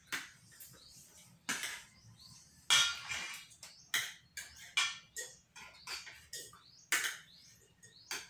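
Spoons and forks clinking and scraping against plates during a meal, irregular short scrapes and clicks about one or two a second, the loudest about three seconds in.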